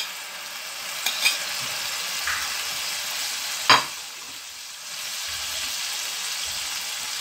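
Grated tomato and tomato paste sizzling in hot oil in a frying pan, a steady hiss. A couple of light clicks come about a second in, and one sharp knock a little past halfway.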